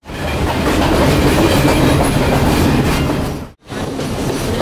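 Moving passenger train heard from on board: the steady rumble and clatter of carriage wheels running on the rails. The sound cuts out for an instant about three and a half seconds in, then resumes.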